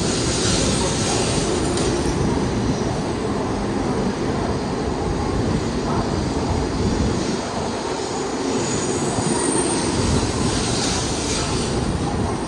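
A Tokaido Shinkansen bullet train moving along the station track, a steady rush of noise.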